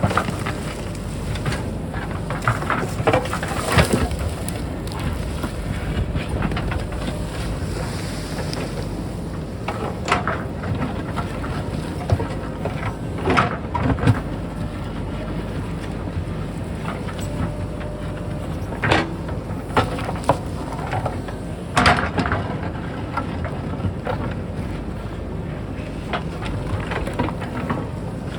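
JCB backhoe loader's diesel engine running steadily while it digs, with about ten sharp clanks and knocks of the bucket against rock and soil scattered through it.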